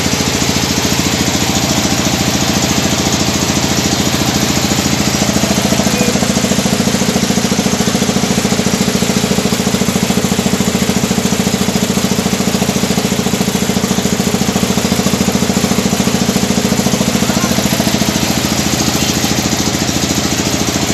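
Small ferry boat's engine running steadily under way, with a fast, even chugging pulse.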